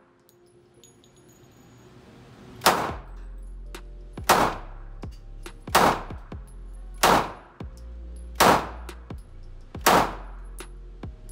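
Six pistol shots fired one at a time, about a second and a half apart, each followed by a short echo off the indoor range.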